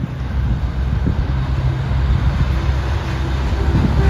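Heavy truck's diesel engine running as it approaches, a steady low rumble that grows gradually louder.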